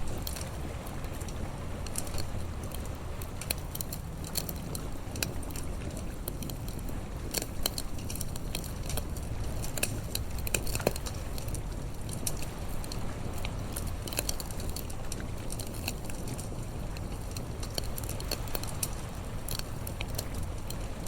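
Bonfire crackling, with irregular sharp pops and snaps over a steady low rumble.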